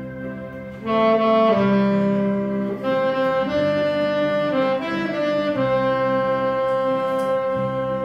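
Alto saxophone playing a slow melody in long held notes over a sustained lower accompaniment. It swells louder about a second in, and the last note is held from about halfway through.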